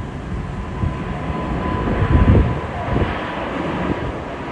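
Airbus A380's four jet engines at takeoff power as the aircraft rotates and lifts off: a steady loud rush with a thin whine held at one pitch. Wind buffets the microphone with low thumps about two seconds in.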